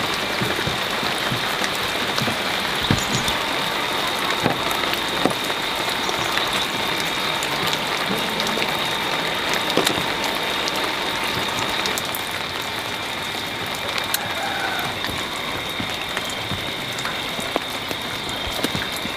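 A steady, dense chorus of insects, a continuous rasping buzz with several high held tones, dotted with scattered clicks; it eases slightly about twelve seconds in.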